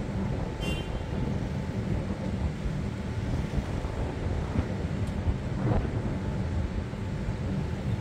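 Wind buffeting the microphone over the steady rush of ocean surf breaking on a sandy beach, in low, gusting rumbles.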